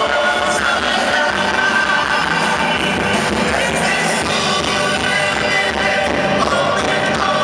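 A live dance band playing amplified through a PA, with drums and keyboards, and women singing into microphones.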